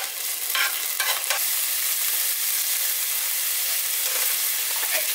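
Minced garlic sizzling in hot olive oil in a nonstick frying pan, a steady high hiss, with a few clicks of a spoon against the pan in the first second and a half.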